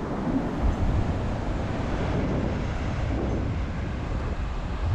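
Strong wind blowing across the microphone, a steady rumbling rush, strong enough to carry sand along the beach.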